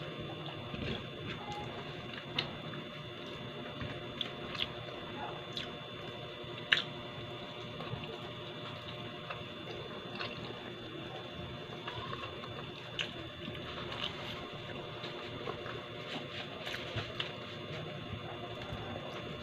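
A person chewing food close to the microphone, with wet mouth sounds and scattered sharp clicks, the loudest about seven seconds in, over a faint steady hum.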